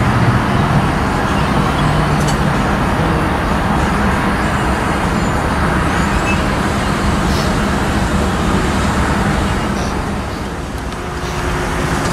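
Steady low engine rumble and hum mixed with road traffic noise. It eases briefly near the end.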